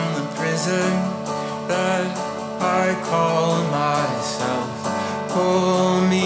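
Background music: a song with a sung melody over guitar and a steady bass line.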